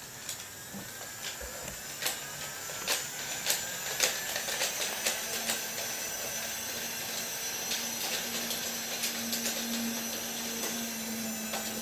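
Toy Disney Monorail playset train's small electric motor running in reverse along its track: a steady whir that rises in pitch over the first few seconds, then holds with a low hum, with frequent light clicks throughout.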